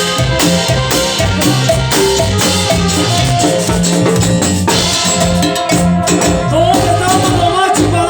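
Ecuadorian chichera band music, cumbia-style, with a steady beat of bass, drums and shaken percussion. A lead line with sliding, bending notes comes in near the end.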